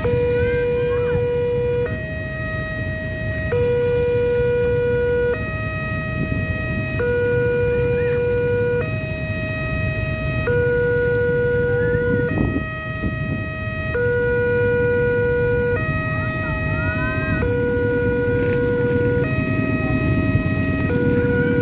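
Railway level-crossing warning signal sounding a steady alternating two-tone alarm, a lower and a higher tone each held nearly two seconds, over the low hum of idling motorcycles waiting at the barrier.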